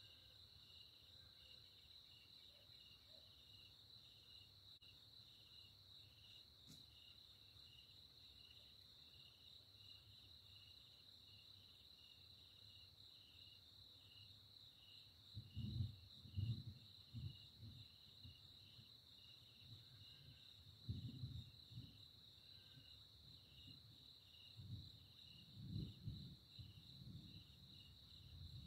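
Faint night chorus of crickets: a steady high trill with a slower, regularly repeating chirp just beneath it. From about halfway through, short low rumbles come and go several times, louder than the insects.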